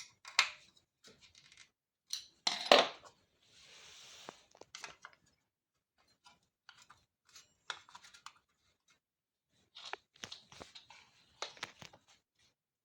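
Scattered clicks, taps and light metallic clatters of hand tools and small parts being handled while working on the scooter's rear fender, loudest about two to three seconds in, with a brief hiss around four seconds in.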